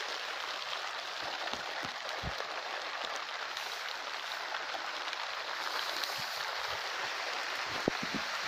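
Steady rain falling, an even hiss, with a few low thuds, one about two seconds in and a sharper one near the end.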